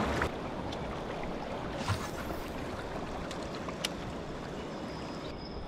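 River water rushing and lapping around a kayak drifting through a riffle, a steady wash with a few faint clicks.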